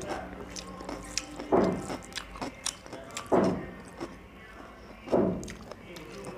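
Close-miked eating sounds of chicken curry and rice eaten by hand: chewing with many small wet clicks, and three louder wet sounds about two seconds apart.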